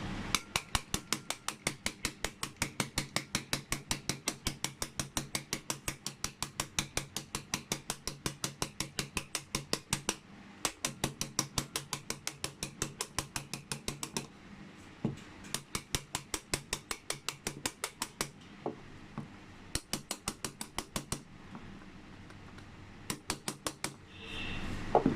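Rapid, even clicking from a tool working the retaining pin out of a Honda City lock cylinder, about four or five clicks a second. It comes in several runs with short pauses, the longest run at the start.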